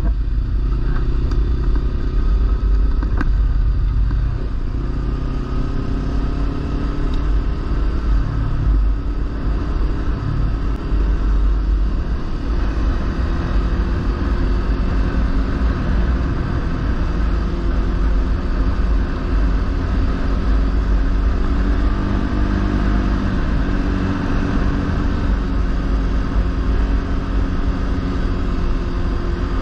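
Kawasaki Versys-X 300's parallel-twin engine running while riding at a steady pace, its pitch drifting up and down a little with the throttle, over a strong low rumble of wind and road noise.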